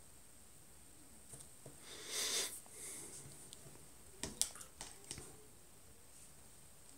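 A short sniff about two seconds in, then a few light, sharp clicks of a thin paintbrush knocking against the side of a water cup as it is rinsed.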